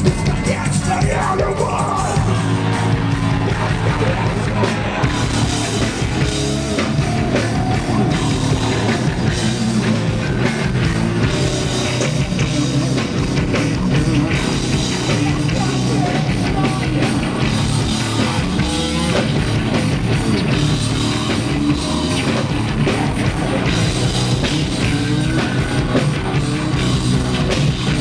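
Heavy rock band playing live: a driving drum kit and distorted guitars with bass, and vocals over them.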